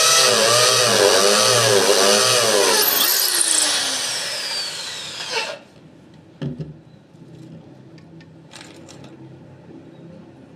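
A power tool running hard, its pitch swinging up and down about twice a second, then winding down with a falling whine and stopping suddenly about five and a half seconds in. A knock and a few light clicks follow.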